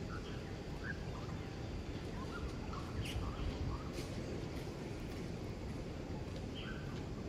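Small birds chirping in short, scattered high chirps, a few falling in pitch, over a steady low outdoor background noise. Two sharp clicks are heard about three and four seconds in.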